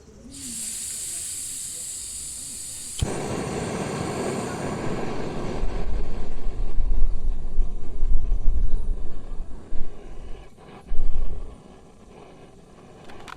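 A steady high hiss for about three seconds, then an abrupt switch to storm wind buffeting the microphone in heavy, rumbling gusts that peak in the middle and ease off near the end.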